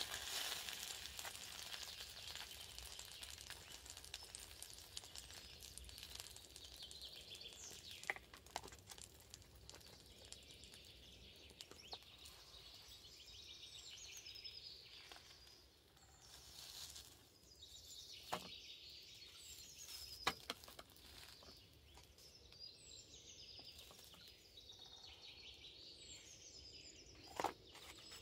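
A beef patty sizzling faintly in a Mini-Trangia frying pan, the sizzle fading over the first few seconds. Songbirds chirp now and then, and a few sharp clicks of handling come through.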